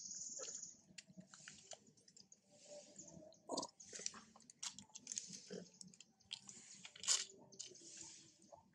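Faint, irregular smacking and clicking sounds with soft bursts of hiss from long-tailed macaques grooming and lip-smacking at a newborn.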